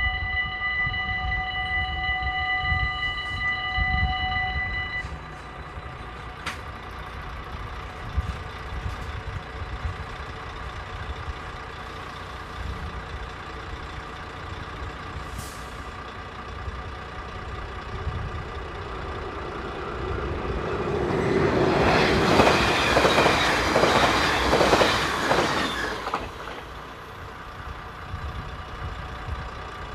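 Dutch level-crossing warning bell ringing steadily, stopping about five seconds in once the half-barriers are down. Then, about twenty seconds in, a train passes the crossing for some five seconds, the loudest sound here, its wheels clattering rapidly over the rails before it fades away.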